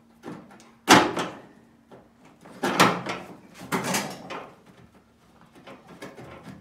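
Chevrolet C10 tailgate handle knocking and clunking against the tailgate's sheet metal as it is worked into the handle opening: a sharp knock about a second in, then a few more clunks around three and four seconds.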